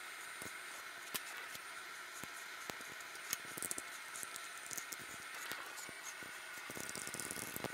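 Faint handling noises of wiring being worked into a motorcycle frame: scattered small clicks and brief rustles of cable, with a short burst of rustling near the end, over a steady background hiss.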